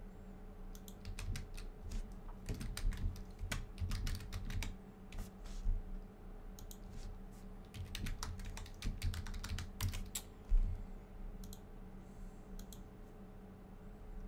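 Typing on a computer keyboard in two bursts of keystrokes, the second starting about eight seconds in, with a heavier thump about ten seconds in and a few single key taps after.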